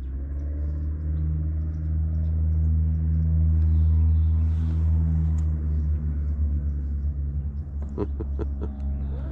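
Propeller engine of a craft running steadily with a low, even hum, growing louder to a peak about four seconds in, then easing off slightly. A few sharp clicks come near the end.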